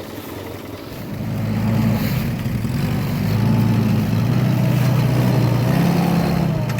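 1940s Willys jeep's four-cylinder flathead engine running as the jeep crawls along, getting louder about a second in and then holding steady.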